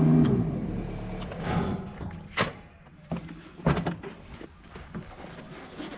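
An engine shutting off, its steady note falling away within the first half second. A few scattered sharp knocks and clatters follow.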